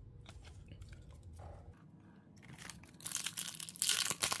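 A 2021-22 Upper Deck Extended Series hockey card pack's wrapper crinkling and tearing open, a dense crackle starting about three seconds in after a few faint clicks of cards being handled.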